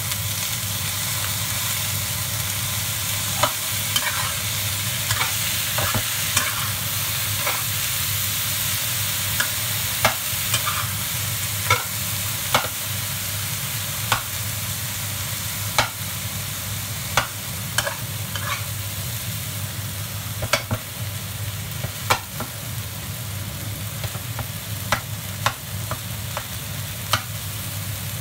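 Egg fried rice sizzling in a wok as a metal spatula stirs and tosses it, with irregular sharp clinks of the spatula against the wok over a steady hiss. A steady low hum runs underneath.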